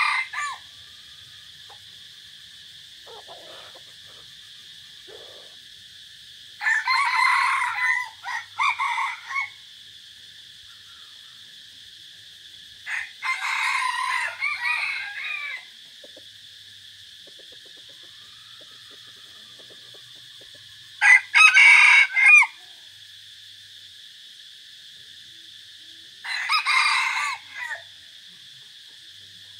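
Caged red junglefowl decoy roosters crowing in turn: about five crows spaced several seconds apart, the loudest about two-thirds of the way through.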